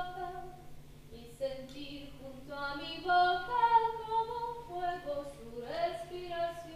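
A woman singing a slow melody unaccompanied, holding long notes that glide from one pitch to the next.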